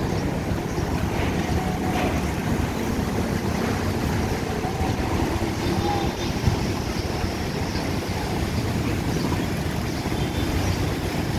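Strong wind of a dust storm blowing steadily, with heavy wind noise buffeting the microphone.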